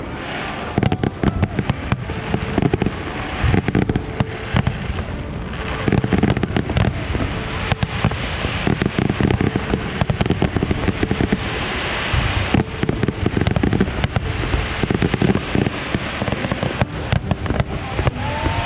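A dense barrage of firework shells bursting: rapid, overlapping bangs and crackle with hardly a pause. Music from the display's soundtrack plays underneath.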